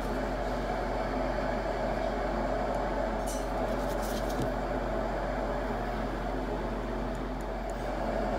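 Steady mechanical hum, with a few faint clicks about three to four seconds in.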